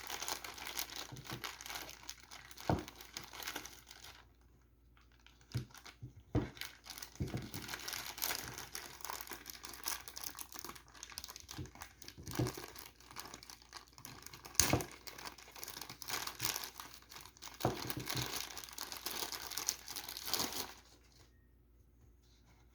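Figure packaging being handled and unwrapped: crinkling and tearing with scattered sharp clicks. It breaks off briefly about four seconds in and stops shortly before the end.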